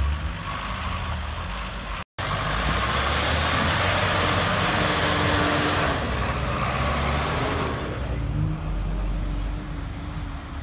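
GAZ-66 army truck's engine running as it fords a river, with a loud rush of water around the wheels for several seconds after a brief dropout about two seconds in. Near the end it turns quieter, leaving a lower engine hum.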